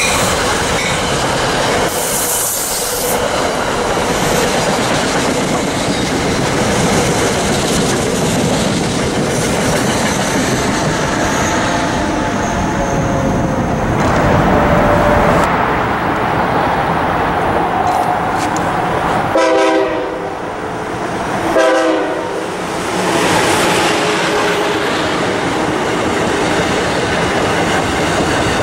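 A train running past with wheels clattering over the rails, and two short horn blasts about twenty seconds in.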